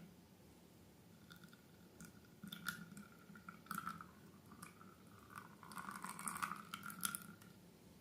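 Slime being handled and mixed, making a quiet run of small sticky clicks and crackles. They start about two seconds in and are densest in the second half.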